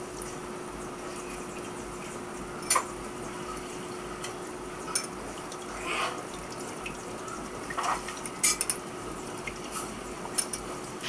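A metal spoon beating eggs in a glass bowl: scattered clinks and taps of the spoon against the glass, about seven in all, over a steady low hum.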